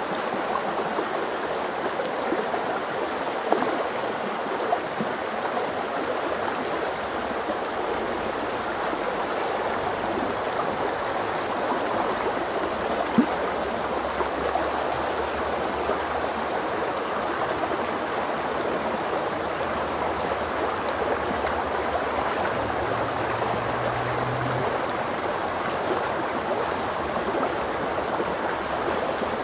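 Shallow stream running steadily over stones and gravel, an even rushing and rippling of water. A few brief clicks stand out, about three and a half seconds, five seconds and thirteen seconds in.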